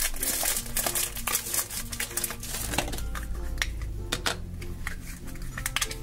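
Toy blind-box packaging being unwrapped by hand: cardboard and plastic crinkling and tearing, with small clicks as the plastic box is handled, loudest in the first second and again near the end. Light background music plays throughout.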